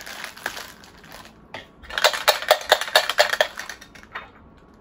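Crinkling and crackling of the thin black plastic bag that a Funko Soda figure is packed in, as it is pulled open by hand. There are a few crackles at first, then a dense run of sharp crackles from about two seconds in to about three and a half.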